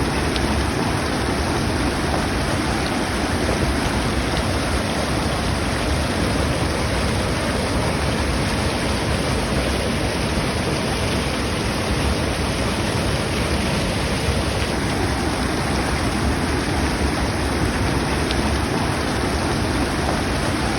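Steady rushing and churning of water falling into a natural pool, a waterfall-fed 'natural jacuzzi'.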